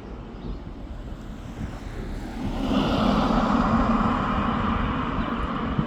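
Mack McNeilus front-loader garbage truck driving past, its diesel engine and road noise growing louder about two and a half seconds in and staying loud.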